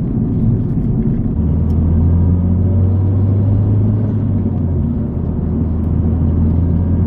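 Mazdaspeed 3's turbocharged 2.3-litre four-cylinder engine and tyre noise while driving, a steady low drone that grows stronger about a second and a half in.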